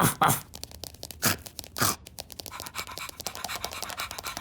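Cartoon sound effects of a ladybird scurrying off: a rapid pattering scuttle with four quick falling zips in the first two seconds, then a lighter, even patter.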